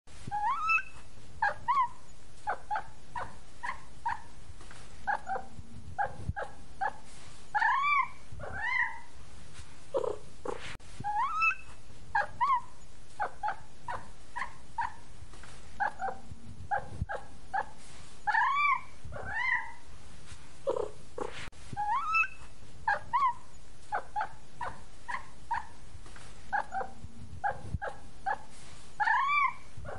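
Kitten mewing: a string of short high mews, several a second, broken by a few longer rising-and-falling meows. The same sequence of calls repeats about every ten and a half seconds, like a looped recording.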